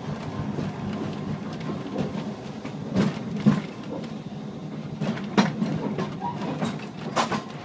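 Glasgow single-deck tram running along its track: a steady rumble of wheels on rail with irregular sharp knocks and rattles.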